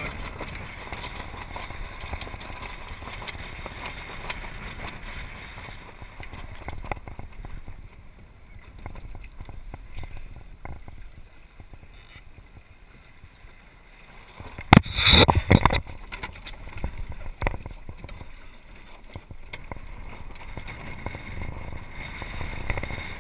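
Water sloshing and gurgling along the hull of a small sailboat under sail. About fifteen seconds in, a loud cluster of knocks and clatter lasts about a second, with one more knock shortly after.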